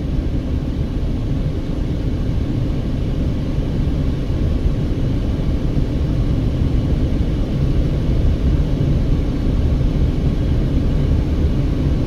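Steady low road and engine noise heard inside a Mercedes-Benz car's cabin as it drives uphill at road speed.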